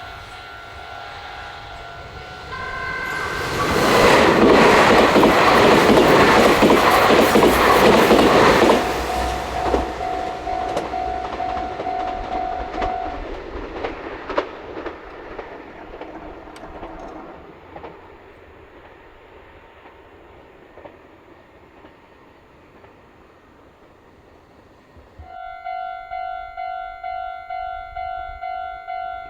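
A Meitetsu train sounds its horn briefly, then passes the level crossing with a loud rush of wheels clattering over the rail joints, and the sound fades away. The crossing's warning bell rings on, falls silent, then starts again near the end with a steady repeating ding, the sign of another train approaching.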